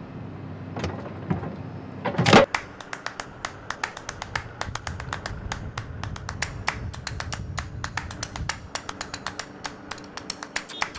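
Raindrops striking a hard surface in a dense, irregular patter of sharp ticks, several a second, over a low rumble, after a loud, short rushing burst about two seconds in.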